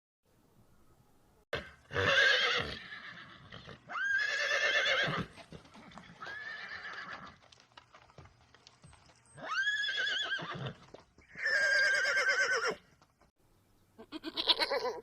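Pony whinnying repeatedly: several high, quavering calls of about a second each, with short pauses between them.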